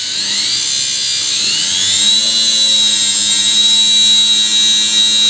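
Electric motor run through a 400 W speed controller spinning up: its whine rises in pitch over about two seconds, then holds steady at speed.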